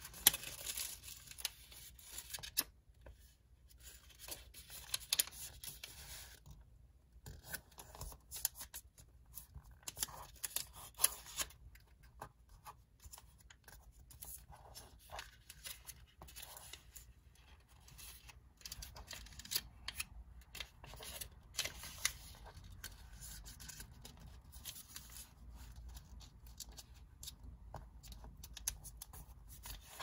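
Sheet of origami paper being folded by hand: irregular crinkling and rustling, with short sharp scrapes and clicks as the creases are pressed flat on a cutting mat.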